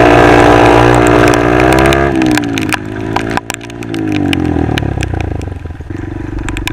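Honda MSX 125 single-cylinder four-stroke engine running hard at high revs, dropping off as the throttle closes about two seconds in, picking up briefly again and then falling away to a lower buzz. Sharp clicks scatter through the second half.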